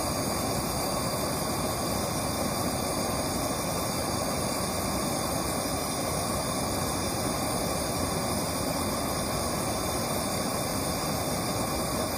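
Gas blowtorch flame firing into a small homemade forge cup: a steady, unbroken roaring hiss.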